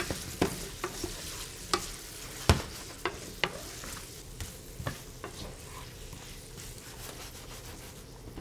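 Food sizzling in hot fat in a frying pan while a utensil stirs it, with irregular clicks of the utensil against the pan, the loudest about two and a half seconds in. The sizzle eases off slowly towards the end.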